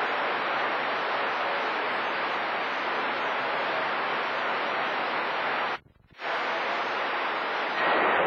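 CB radio receiver hiss from band static while monitoring channel 28 for long-distance skip. The static cuts out for about half a second about six seconds in, then returns. Near the end it gets louder as a distant station's signal comes in.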